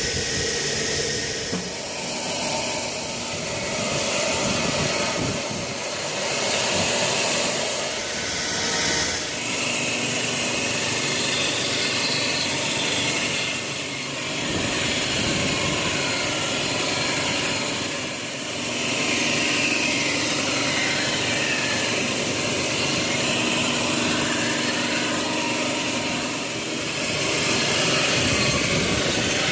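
Sawmill machinery running steadily with a saw cutting through teak wood: a continuous mechanical noise whose higher whine shifts as the cut goes on.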